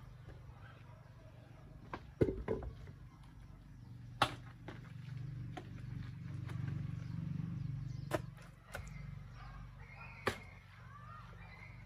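A hoe striking clay and stone: a handful of sharp, scattered knocks and thuds as clay is dug and worked into a dry-stone retaining wall, over a low steady hum that grows louder in the middle.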